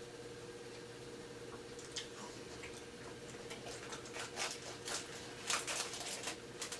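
Quiet room with a steady low hum and scattered faint clicks and small taps, more frequent in the second half.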